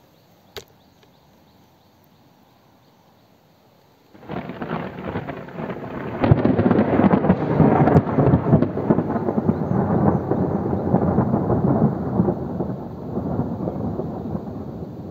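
Thunder: a sudden crackling onset about four seconds in that builds into a loud rumble with sharp cracks, then rolls on and slowly fades. A single faint click comes about half a second in.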